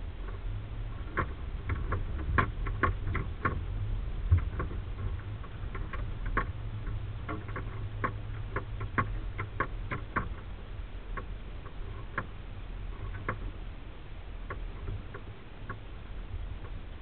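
Low steady engine drone from inside a four-wheel-drive vehicle on a rough dirt trail, with irregular sharp clicks and rattles from the interior as it jolts over the ground. The clicks come thick and fast for the first ten seconds or so, then thin out.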